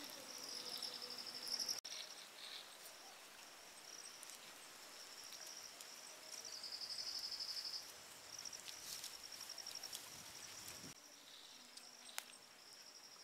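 Insects trilling in repeated bursts of rapid, high-pitched pulses, each lasting about a second, over faint outdoor background. A single sharp click sounds near the end.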